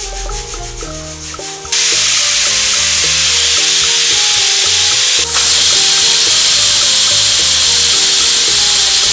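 Pressure cooker whistling: steam jets out past the lifted whistle weight with a loud, steady hiss that starts suddenly about two seconds in. Each such whistle is a counted sign that the cooker has reached full pressure.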